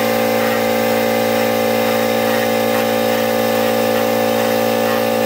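Dremel rotary tool running steadily at constant speed, its sanding drum grinding into cured clear epoxy to open up and sand out a trapped air-bubble void.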